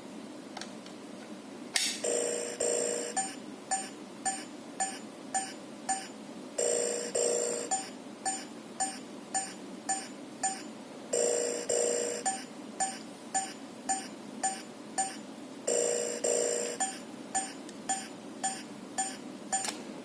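Fluke IntelliTone Pro 200 probe sounding its cable-test result: a warbling two-note tone about a second long, then a run of short beeps at about two a second, the whole pattern repeating about every four and a half seconds. This is the distinct tone it gives when two pins of the LAN cable are swapped, here pins 1 and 2.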